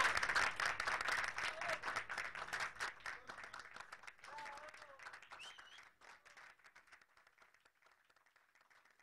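Audience applauding, with a few voices calling out over the clapping; the applause dies away, gone about seven seconds in.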